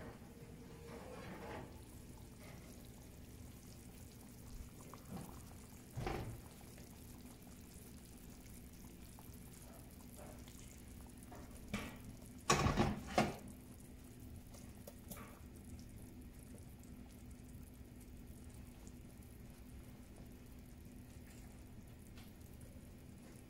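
Cast-iron skillet set down on a gas stove's metal grate: a few loud clanks close together about halfway through. Around them there are fainter knocks and a steady low hum.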